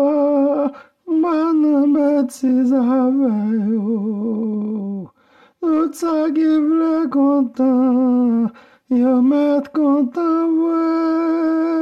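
A solo male voice singing a Haitian vodou folk song to Gran Bwa, unaccompanied. He holds long notes with wide vibrato and slides down in pitch, in phrases broken by short breaths.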